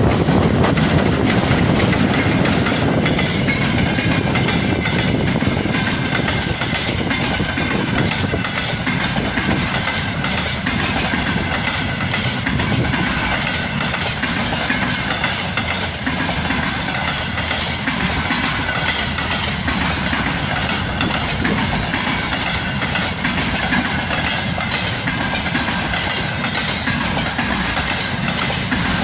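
Freight train rolling past close by behind a VL80s electric locomotive, its wagon wheels clattering steadily over the rail joints.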